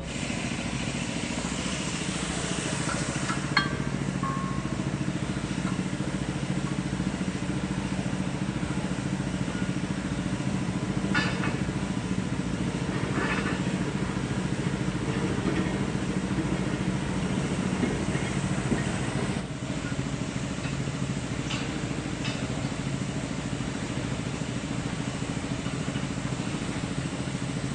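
An engine running steadily, with a few short metallic clinks now and then.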